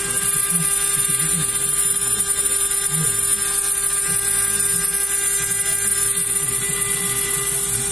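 800-watt CNC router spindle milling aluminium, running steadily with a high-pitched whine and cooled by a water-and-air mist spray.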